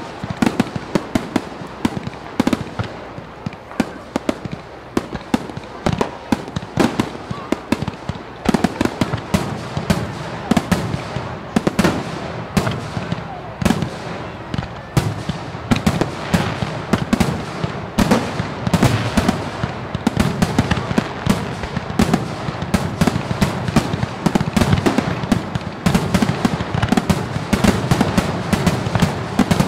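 Fireworks display going off: a dense run of sharp bangs and crackles from bursting shells, several reports a second, without let-up.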